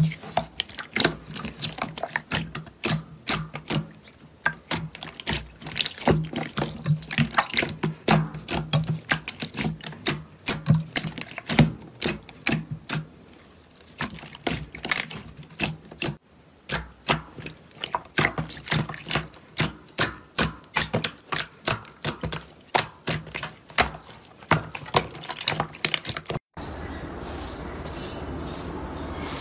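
Slime being squeezed and worked by hand, giving a dense run of sharp pops and clicks, several a second. Near the end it cuts off abruptly and a steadier, even rustling sound follows.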